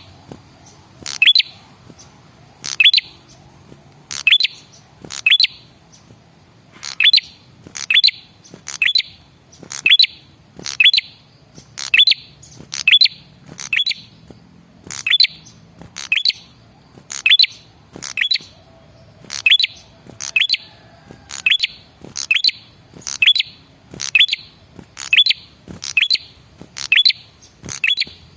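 A male prenjak kepala merah (red-headed prenjak) songbird repeating a short, sharp, high chirp about once every second and a half. It is a lure call meant to make other birds of its kind answer.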